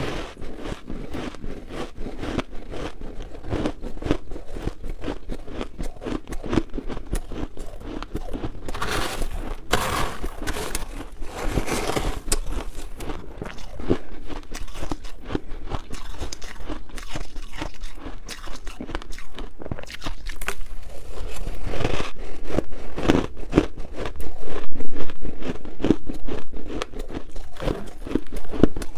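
Shaved ice being chewed: many rapid crunches from a mouthful of ice, with a metal spoon scraping and scooping through the shaved ice in the tray. The crunching is loudest about 25 seconds in.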